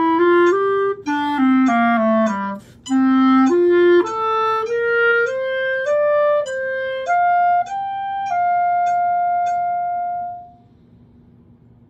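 Solo clarinet playing a slow, lyrical melody: a short phrase that steps down in a quick run, then climbs note by note to a long held final note that stops about ten and a half seconds in.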